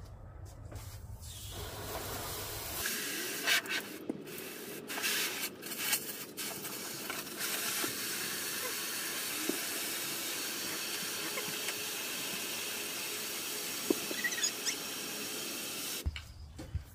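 Water spraying into the plastic basin of a children's water-play table as it is filled, a steady hiss that breaks off and restarts a few times at first.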